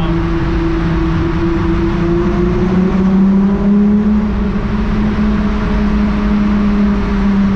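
A car's VR6 engine pulling under acceleration, heard from inside the cabin in a road tunnel. Its note climbs slowly in pitch over the first few seconds, then holds steady, over a constant low road rumble.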